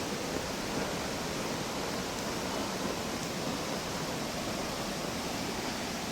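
Steady rushing of water, like a waterfall or a fast mountain stream, with no breaks.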